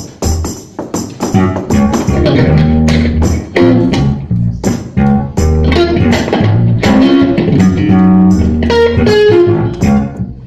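Live blues music: guitar playing held and sliding notes over a bass guitar line, with two brief breaks, about halfway and near the end.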